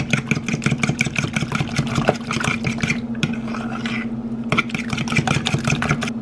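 Metal fork rapidly beating a runny egg mixture in a plastic bowl, clicking against the bowl about eight to ten times a second. The beating breaks off for a second or so a little past halfway, then starts again, over a steady low hum.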